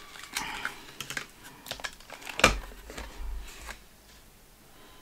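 Clear plastic clamshell of a Scentsy wax bar being handled and pried open: scattered plastic clicks and crackles, the loudest about two and a half seconds in.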